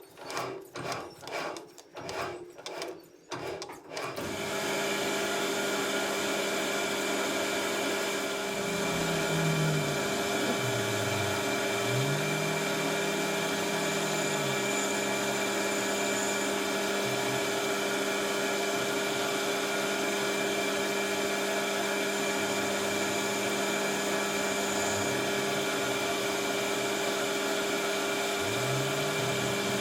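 A run of short, noisy strokes about two a second, then a metal lathe starts about four seconds in and runs steadily with a constant hum.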